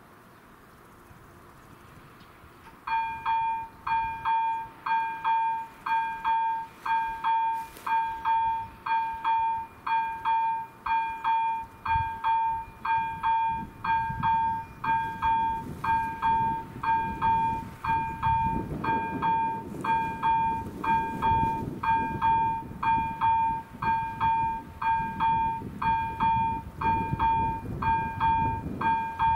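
AŽD 71 level-crossing warning bell: an electronic pulsed ringing tone that starts about three seconds in as the red lights begin flashing and repeats evenly, warning of an approaching train. A low rumble builds underneath in the second half.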